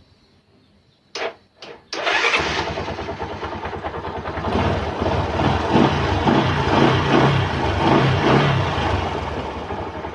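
Rouser 135 LS motorcycle engine started on the electric push-button starter: two short bursts, then it catches about two seconds in and keeps running, a sign that the rewired starter button works.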